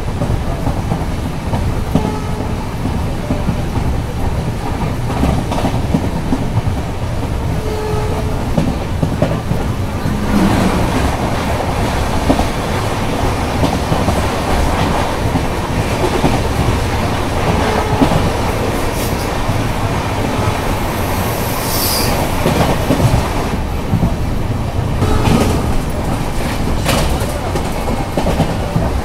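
A passenger train running on track: steady wheel-and-coach rumble with the clickety-clack of wheels over rail joints, and a brief high wheel squeal about two-thirds of the way through.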